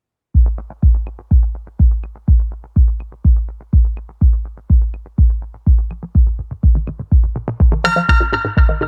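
Electronic dance music: a steady kick drum beat about twice a second, with synth chords coming in near the end.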